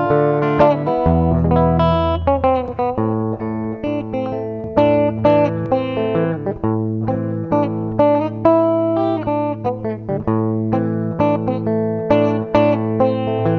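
Solo fingerstyle guitar on a hollow-body archtop electric: plucked melody notes over held, thumbed bass notes, in the Travis-picking style.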